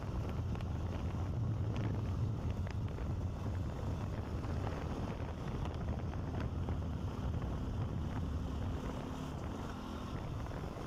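Bajaj Pulsar NS200's single-cylinder engine running steadily under way, with wind buffeting the microphone.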